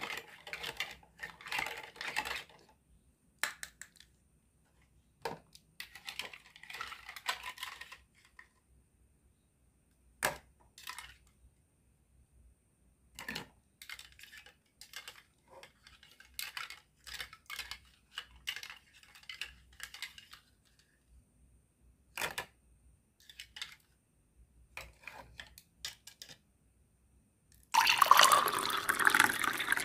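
Plastic toy vegetable pieces clicking and knocking in a small plastic toy pot as they are stirred with a spoon, in scattered taps with a short spell of scraping. Near the end, liquid poured from the pot splashes into a plastic bowl for about two seconds, the loudest sound.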